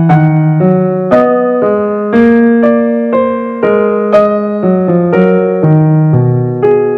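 Background music: a keyboard playing a slow melody, struck notes about twice a second, each fading until the next.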